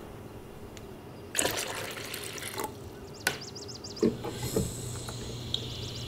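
Drip coffee maker at work: a pour about a second and a half in, a click, then from about four seconds the machine's steady hum with gurgles and splashes of liquid as it brews into the glass carafe.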